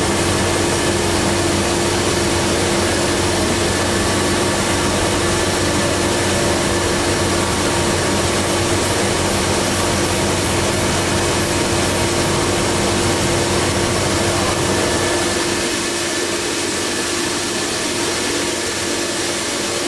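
Okamoto ACC 84 EX surface grinder running without a workpiece: the grinding wheel spinning and the table traversing, a steady machine hum with a held tone. The low hum eases slightly about fifteen seconds in.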